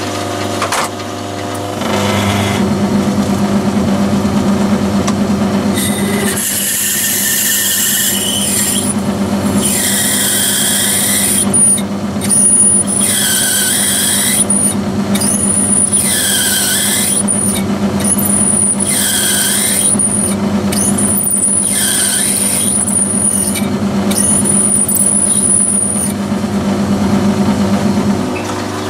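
Metal lathe running, with a twist drill in a tool-post drill chuck fed by hand into the end of a spinning brass bar: the drill squeals in about seven bursts as it is fed in and out, drilling a hole to a set depth against the saddle stop. The lathe motor starts about two seconds in and stops near the end.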